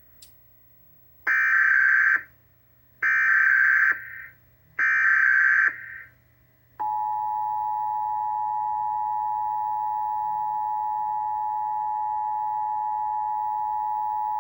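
Emergency Alert System Required Monthly Test signal: three short bursts of digital SAME header tones, each about a second long, encoding the alert. About seven seconds in, the steady two-tone attention signal (853 and 960 Hz) starts and holds.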